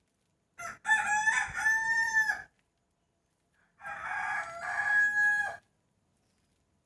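Rooster crowing twice, two long cock-a-doodle-doo calls a little over a second apart, each holding its pitch and dropping away at the end.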